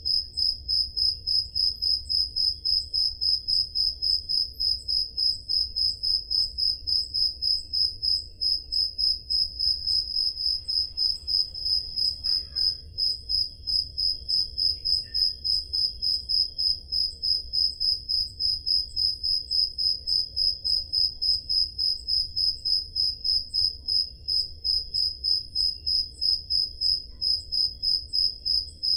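Crickets chirping on a summer night: one loud, high-pitched chirp repeating at an even, steady rate, with fainter crickets chirping behind it.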